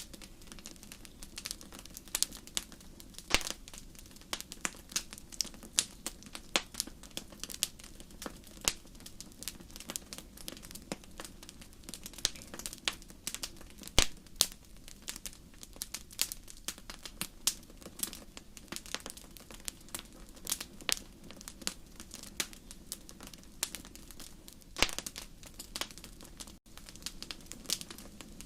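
Fire burning in a fireplace, crackling with irregular sharp pops and several louder snaps, over a low steady hum.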